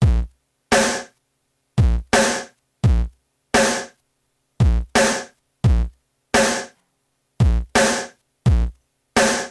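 Song intro: a sparse drum-machine beat playing on its own, deep kick-drum thumps alternating with brighter snare hits, each hit cut off short with silence between.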